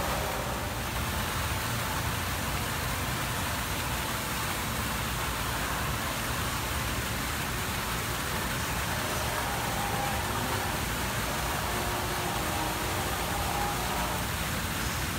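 Steady rushing, splashing water from an artificial rock waterfall pouring into a bumper-boat pool, with a low rumble underneath.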